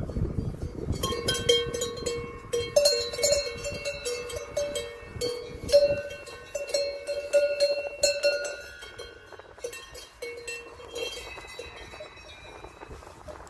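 Several cowbells on the collars of Brown Swiss cows clanking irregularly as the cows walk and graze. Each clank rings on briefly. The clanking is busiest for the first several seconds and thins out to a few scattered clanks near the end.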